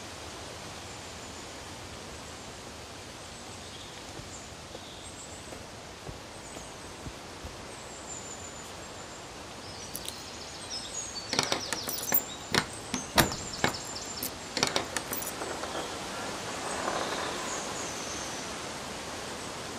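Keys and a brass padlock being worked open on a metal door hasp: a cluster of sharp metallic clicks and rattles about halfway through. A brief scraping swell follows as the wooden shed doors are swung open, over steady outdoor ambience with faint bird chirps.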